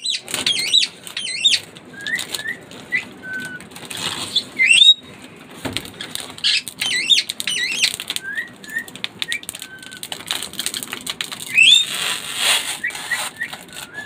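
Crinkling and rustling of the clear plastic protective film on a washing machine's glass lid as it is handled. Birds chirp over it throughout, in short rising and looping calls.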